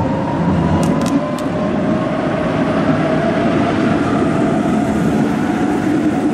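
Road traffic and a passing tram: steady rolling noise from passing cars, with a faint whine that slides slowly down in pitch.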